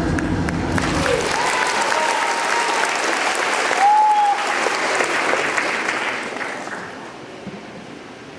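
Audience applauding as the stage music ends about a second in, with a few voices calling out over it; the applause dies away near the end.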